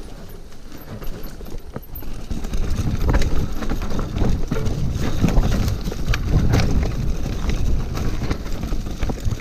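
Electric mountain bike riding over rough trail: a steady rumble of tyres and wind with frequent knocks and rattles from the bike, getting louder about two to three seconds in.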